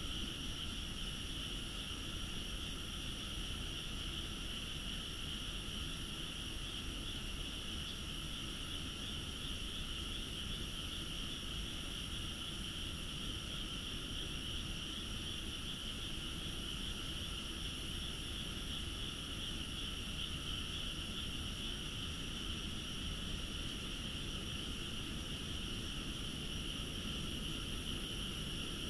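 Frogs from a rice paddy calling in a steady, dense chorus, strongest in a high band, over a low background rumble.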